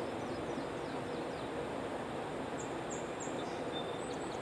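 Small birds chirping faintly: a quick series of short falling chirps, then higher, sharper chirps in the second half. Under them is a steady outdoor background hiss.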